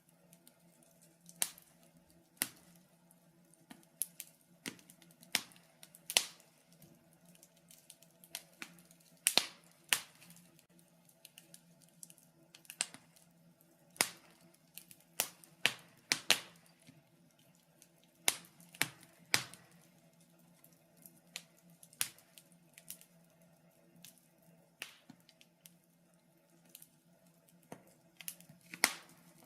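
Wood fire in a fireplace crackling, with irregular sharp pops and snaps, some single and some in quick clusters, over a faint steady low hum.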